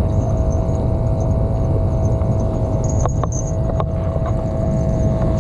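Steady low rumble with a constant mid-pitched hum, and a few sharp clicks about three seconds in.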